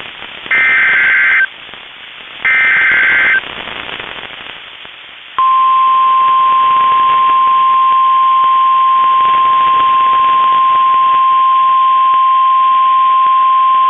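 NOAA Weather Radio Emergency Alert System broadcast: two one-second bursts of SAME header data with radio hiss between them, then, about five seconds in, the steady single-pitched 1050 Hz warning alarm tone that holds on. This is the signal that a tornado warning follows.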